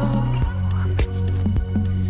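Background music with a steady beat, bass notes held under it.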